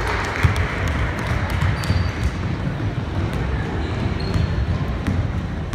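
Basketball game on a hardwood court: the ball bouncing and players running, with a few short high squeaks and background voices.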